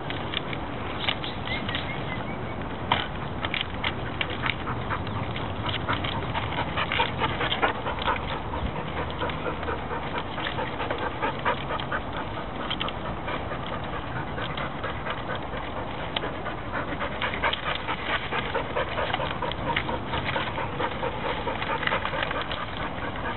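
Dogs panting while one scrambles up through a tree's branches, with a steady irregular crackle of rustling leaves and snapping twigs.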